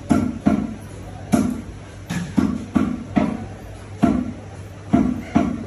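Heavy cleaver chopping through a country chicken on a round wooden log block: about ten dull thuds at an uneven pace, some coming in quick pairs.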